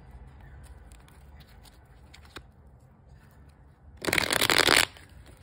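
A gold-edged tarot deck being shuffled by hand: faint scattered card clicks and rubs, then about four seconds in a loud, rapid flutter of cards lasting under a second as the two halves are riffled together.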